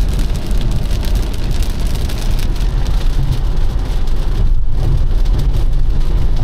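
Road noise inside a Tesla electric car driving on a wet highway in heavy rain: tyres hissing on the wet pavement over a steady deep rumble. The noise drops briefly about four and a half seconds in.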